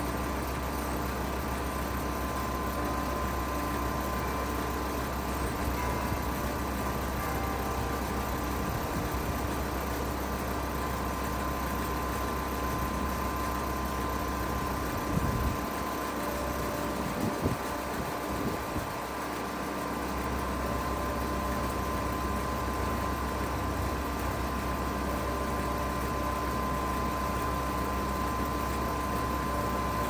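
2014 Payne PH13 2.5-ton heat pump outdoor unit running steadily in heat mode: a constant mechanical hum of compressor and fan with a steady tone above it. A few light knocks come about halfway through.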